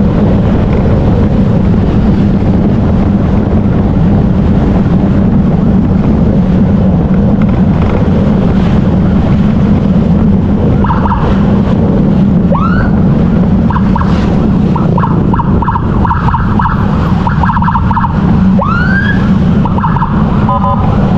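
Motorcycle riding along with steady engine and road noise, while an emergency siren sounds off and on: a pulsing tone from about halfway, and two short rising whoops, one about halfway and one near the end.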